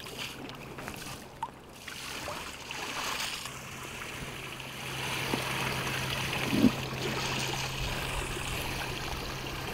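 Seawater pouring and trickling out of a tipped soft bait bag (bakkan) onto the rocks, a steady splashing run of water that grows fuller about three to four seconds in.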